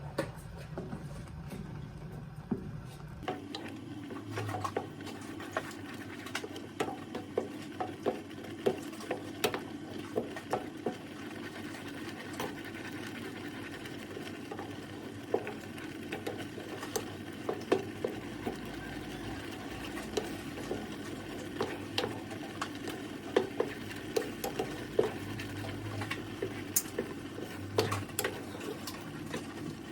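Baby corn risotto simmering and being stirred in a pot: irregular small pops and taps over a steady hum that starts about three seconds in.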